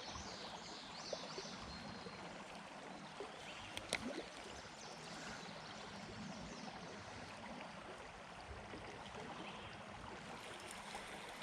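Faint, steady river water running and trickling, with a few small clicks about four seconds in.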